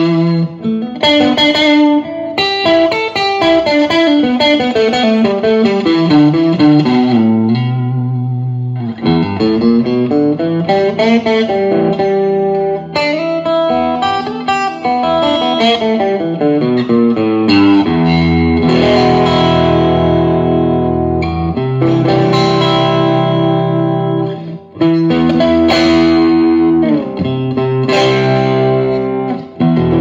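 Electric guitar played through a Vox AC10 C1, a 10-watt valve combo amp: quick single-note runs climbing and falling for the first half or so, then strummed chords left to ring, with short breaks about two-thirds of the way through and near the end.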